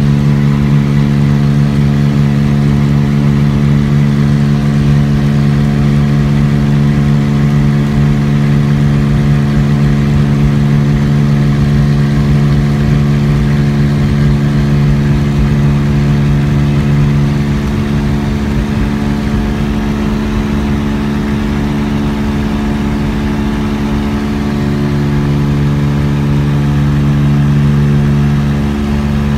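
Cessna 206 floatplane's six-cylinder piston engine and propeller running steadily at low taxi power on the water, heard from inside the cabin. A little past halfway the engine note eases, and it picks back up about 25 seconds in.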